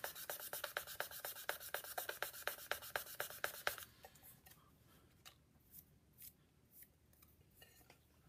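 Faint rapid, even rubbing strokes of a cane clarinet reed worked against sandpaper to take wood off, stopping about four seconds in; a few faint handling clicks follow.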